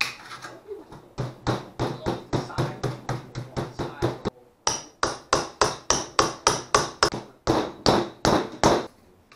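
Hammer striking repeatedly, about three to four blows a second, as expanded metal lath is fastened over a house-wrapped foam-and-wood armature. There is a brief pause a little after four seconds in.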